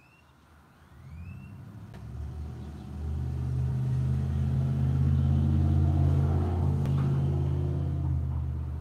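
Low, steady engine rumble that swells over the first few seconds and then holds at one pitch.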